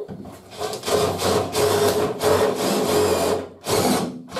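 Power drill driving a screw to fix a bracket into a timber wall plate, its motor whining steadily for about three seconds, stopping, then running again briefly near the end.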